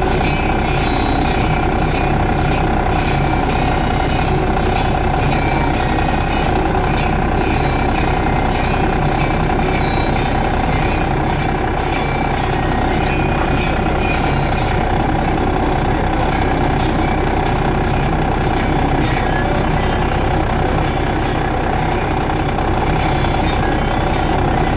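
Heavy diesel farm machinery running steadily, with a constant whine over the engine noise.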